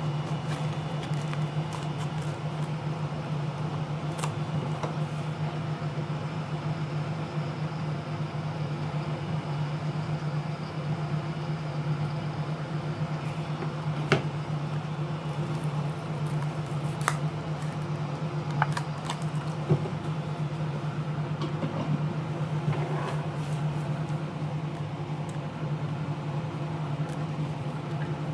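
A steady low hum with a handful of sharp clicks scattered through it, from small tools and parts being handled during a tablet teardown.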